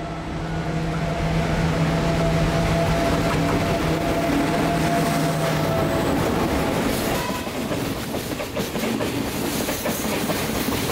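Freight train passing close by: the diesel locomotive's steady engine hum, then tank wagons rolling past with a rapid clickety-clack of wheels over the rail joints from about seven seconds in.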